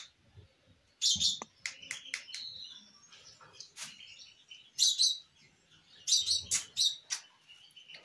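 Hand-reared lovebird chicks giving repeated short, high chirping calls, in several clusters. This is food-begging as they are about to be syringe-fed.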